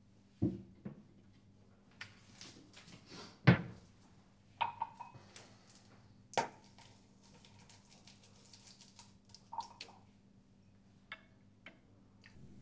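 A glass and dishes being handled at a kitchen sink: a string of separate knocks and clinks, the loudest a sharp knock about three and a half seconds in. Two of the clinks, about five and six seconds in, ring on briefly like struck glass. A few light clicks come near the end as the wall tap's handle is turned.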